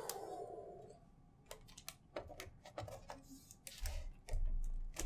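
Cardboard box and foam packaging being handled: a short scraping slide at the start, then scattered light clicks and taps, and low thumps against the table near the end.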